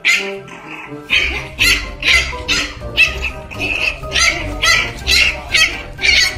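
Background music with a steady beat, about two beats a second, with a bass line coming in about a second in.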